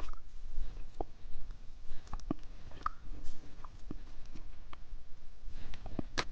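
Scattered light clicks and taps of candy and its plastic packaging being handled.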